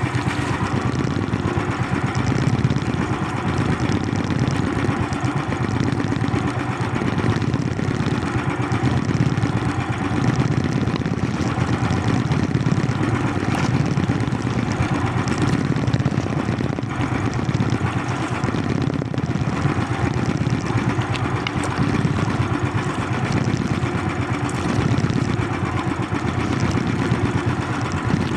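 Small boat engine running steadily at an even speed, with no change in pitch or level.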